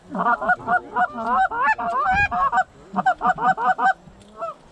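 Rapid runs of loud goose honks and clucks, several a second. There is a short break between about two and a half and three seconds in, and the calls thin out to a last one near the end.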